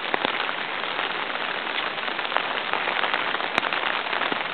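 Heavy rain falling on standing water: a dense, steady patter of drops with many small individual hits, and one sharper click about three and a half seconds in.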